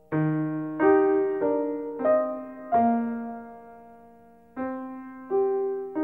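Background music: a slow, gentle piano melody of single struck notes, each ringing and fading. Five come in quick succession, then one note is left to die away for about two seconds before the melody resumes.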